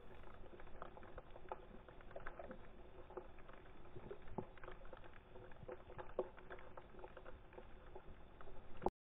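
Faint, muffled underwater ambience heard through a camera's waterproof housing: a dull hiss with scattered irregular clicks and crackles, cutting off abruptly near the end.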